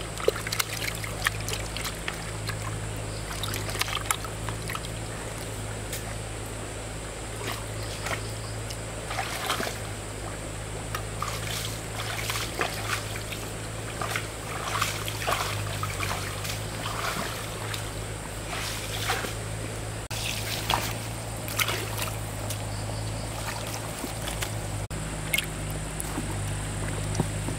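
Water splashing and trickling in irregular bursts over the steady low hum of a motor-driven water pump.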